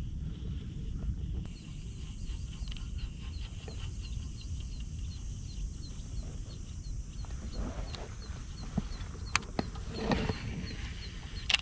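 Wind rumbling on the microphone, with a faint high chirp repeating a few times a second and a couple of sharp clicks near the end.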